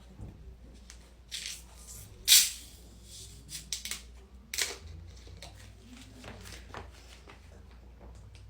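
A few short rustling, hissing noises. The loudest is a sharp hiss a little over two seconds in. No burp is heard.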